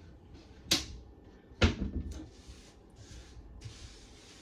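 Kitchen cupboard doors knocking shut twice, about a second apart, the second knock the louder, with a few smaller clicks after it and then a soft hiss.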